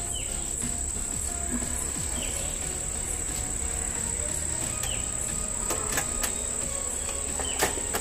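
Light clicks and taps of wires and terminal screws being worked on MCBs in a distribution board, over a steady high-pitched whine. The sharpest click comes about seven and a half seconds in.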